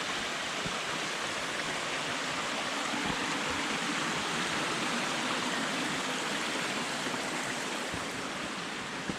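Mountain stream rushing: a steady, even hiss of running water.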